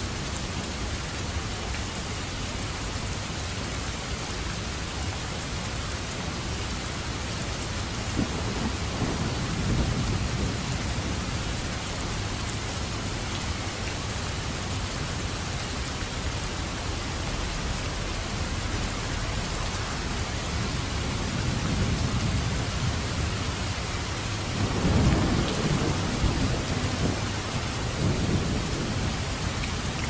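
Steady rain falling, with low thunder rumbling up twice: about eight seconds in, and more loudly around twenty-five seconds in.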